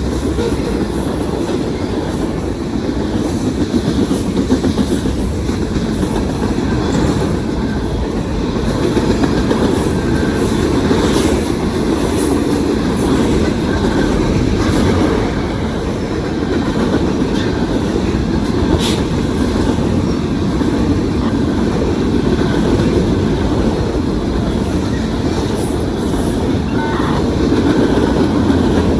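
Long CSX freight train's cars rolling steadily past, steel wheels running on the rails with a few faint clicks.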